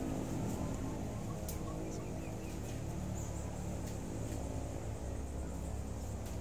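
Outdoor ambience: a steady low rumble with a few faint, short high chirps and light clicks about halfway through.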